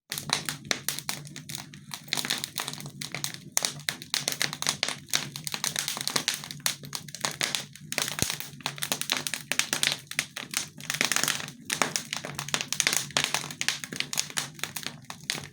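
Wood fire crackling in a kamelek fireplace: a dense, irregular run of pops and snaps.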